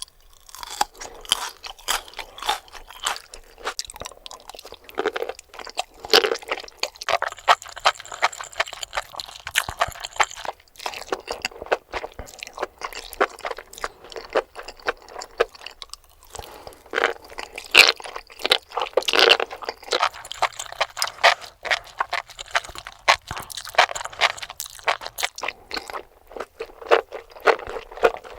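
Close-miked chewing and crunching of crunchy mushrooms, with a quick run of crisp crackles as each mouthful is bitten and chewed, broken by a couple of short pauses.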